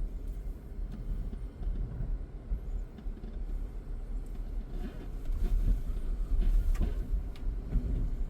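Car driving: a steady low rumble of engine and road noise, louder from about five seconds in.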